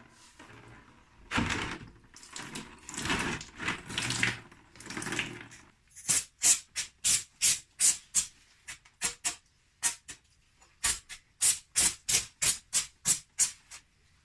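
Hand scrubbing of a steel exhaust tailpipe tip, rubbing back and forth to polish it. There is first a stretch of uneven scrubbing, then quick regular strokes at about two a second.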